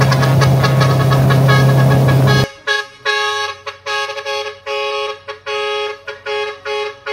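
Background music for about two and a half seconds, then a car horn honking in a rhythmic string of short and longer two-tone toots.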